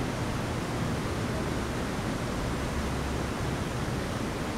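Steady rushing noise with a low rumble underneath, unchanging throughout.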